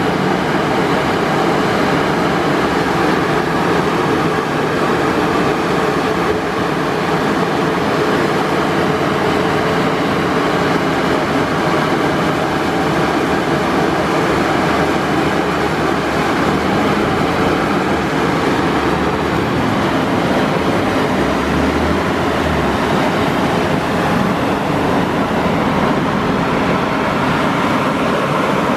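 Ceccato Aries rollover car wash running a brush pass: its blue cloth brushes spin against the car as the gantry travels along it, a steady loud mechanical noise without a break.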